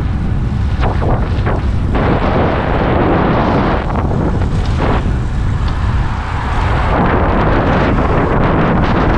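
Loud wind buffeting the microphone of a camera on a moving bicycle, coming in uneven gusts.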